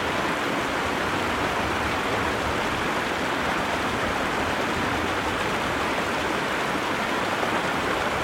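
Steady rushing of a stream, an even noise of running water with no breaks.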